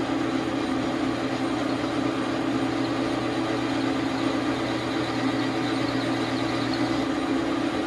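Dar Sin 12 x 37 manual lathe running steadily with a constant motor and gear hum while a chamfer is turned on the back end of an aluminum workpiece.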